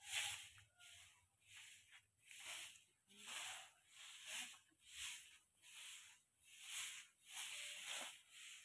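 A stiff bundle broom sweeping a bare dirt yard: faint, even scratchy swishes, about three strokes every two seconds.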